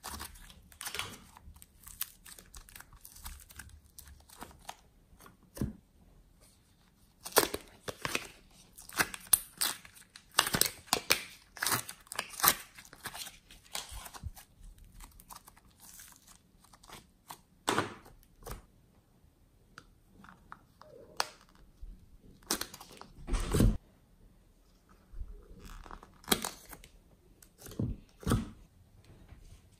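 Hands squeezing, tearing and kneading soft modelling clay and handling thin plastic cups: irregular crinkling, tearing and sticky crackling, with a dull knock about three-quarters of the way through.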